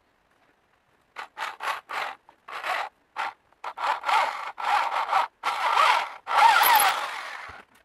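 Steel tool scraping into a wooden handle: a run of rasping strokes on wood, short and quick at first, then longer and louder, ending in one long stroke near the end.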